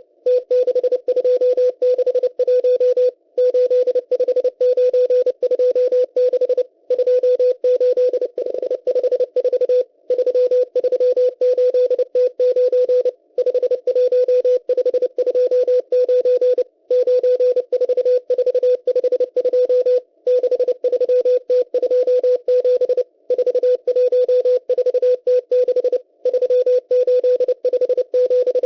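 Morse code from the M12 numbers station received on shortwave: a single tone of about 500 Hz keyed in fast dots and dashes, sending numbers in groups with a short pause about every three seconds.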